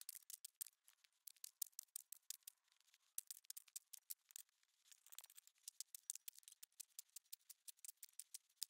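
Faint, irregular clicking and scraping of stones and rocky clay as a shovel drags dirt back into a shallow trench, with several clicks a second and one short scrape about five seconds in.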